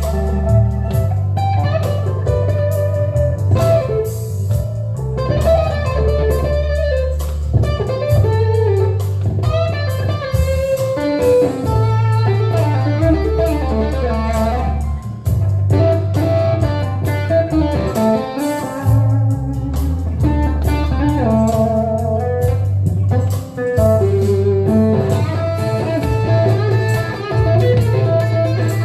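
Telecaster electric guitar playing improvised blues lead lines, with wavering held notes, over a steady low bass accompaniment.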